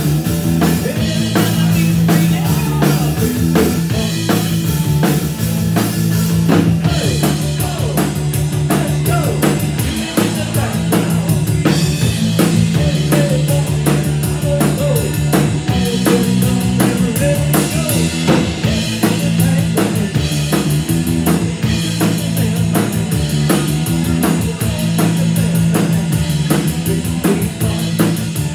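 Live rock band playing: a drum kit keeping a steady beat under guitar, with the cymbals coming in heavier about seven seconds in.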